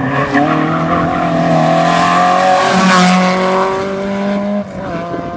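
Rally car engine held at high revs as the car comes up the road and passes close by. It is loudest about three seconds in, with a brief drop in level near the end.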